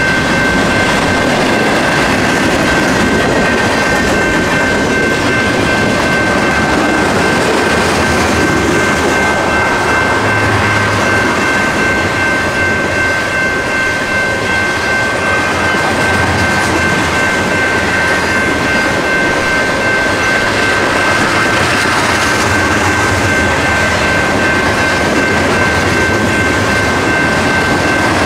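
Freight train cars rolling steadily past at close range, wheels on rail, with a steady high-pitched ringing.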